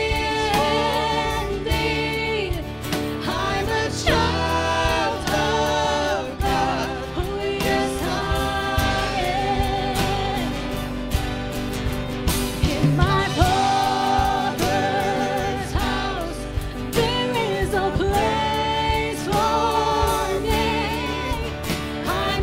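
A woman singing a worship song, holding long notes that waver in pitch, backed by a live band with acoustic guitar and electric bass.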